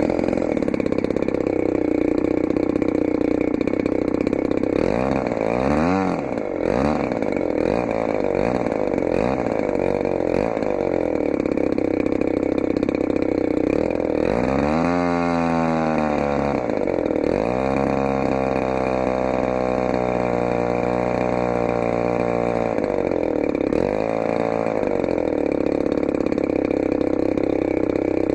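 DLE-35RA 35 cc single-cylinder two-stroke gas engine swinging an APC 18x12 propeller, starting right at the outset and then running loud and continuously. Its speed dips and recovers several times as the throttle is moved, with a long falling drop about halfway through, and holds steady for a while in between.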